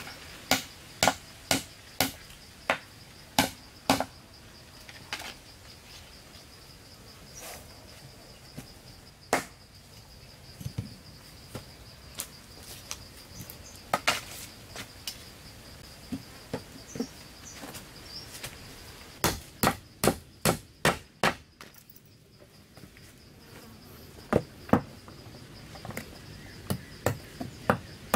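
Repeated sharp blows of a tool on wood, coming in runs of several strokes about two to three a second with pauses between. Under them runs a steady high-pitched insect drone.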